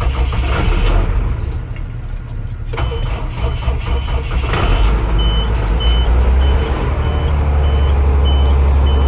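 Truck engine running, heard from inside the cab, uneven at first, then picking up to a louder, steadier run about halfway through. A dashboard warning beeps about twice a second from about three seconds in.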